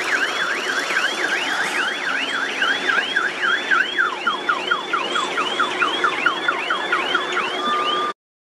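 Electronic siren-style warning alarm on a loaded dump truck, its tone sweeping up and down about three times a second, switching about halfway through to quick falling sweeps and ending on a short steady tone before the sound cuts off abruptly near the end. The truck's diesel engine runs underneath.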